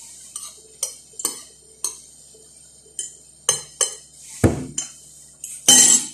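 Cutlery clinking against a plate, a string of short sharp clinks with a louder, longer clatter near the end.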